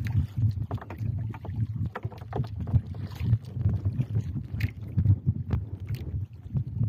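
Steady low wind rumble on the microphone, with scattered sharp knocks and slaps as a fish on a handline is swung into a small wooden outrigger boat and grabbed.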